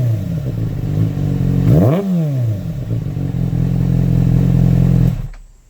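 2007 Kawasaki ZX6R's inline-four running through an MJS Performance header with the catalytic converter deleted: one quick throttle blip about two seconds in, then a steady idle that fades out near the end. It is running smoothly on a Power Commander map for an Akrapovic full system.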